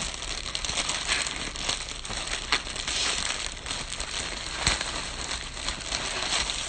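Mailing packaging crinkling and rustling as it is handled and pulled at while being opened, with a couple of sharp snaps about two and a half and four and a half seconds in.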